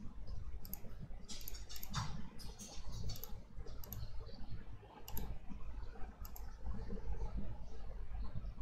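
Computer mouse clicking: about ten irregular clicks over the first six seconds or so, then only a low background hum.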